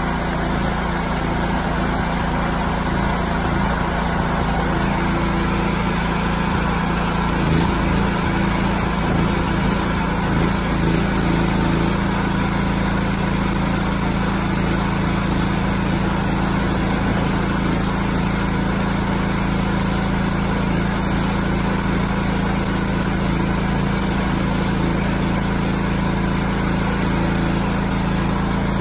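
Open-frame 8000 W petrol generator engine running steadily under the load of an inverter stick welder, together with the hiss and crackle of the welding arc as an electrode burns.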